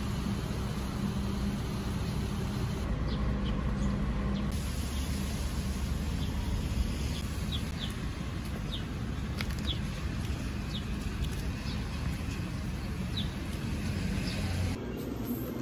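Outdoor ambience: a steady low rumble with short, high bird chirps scattered through the middle.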